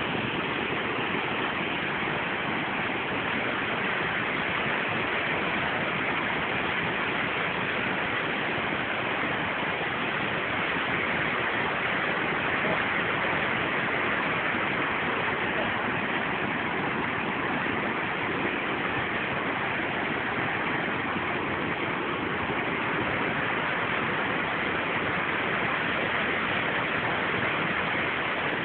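Waterfall water rushing in a steady, loud roar.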